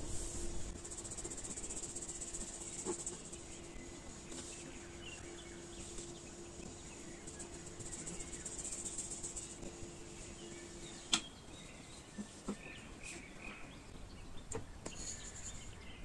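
Flour being shaken through a fine wire-mesh sieve into a wooden bowl: a soft, high rustling hiss with a fine rapid scratching texture. It stops about two-thirds of the way in with a sharp tap, followed by a few light taps.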